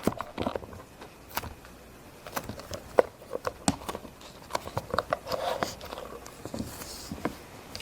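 Irregular light clicks and taps of plastic being handled as Play-Doh is pressed into a plastic mold.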